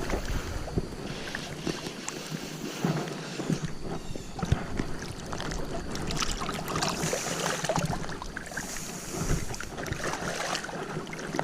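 River water splashing and rushing, with scattered short knocks and clicks.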